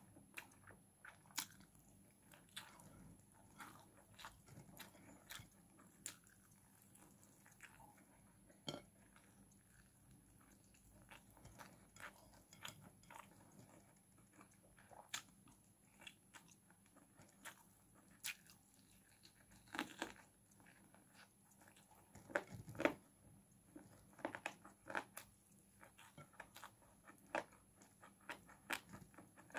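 Faint, sporadic chewing and mouth sounds of a person eating chicken and rice by hand, with scattered small clicks and taps and a few louder bursts in the second half.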